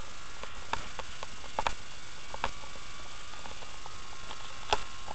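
Electric hair clippers running with a steady buzz while trimming around the ear and sideburn, with several irregular sharp ticks as the blades work against the head; the loudest tick comes near the end.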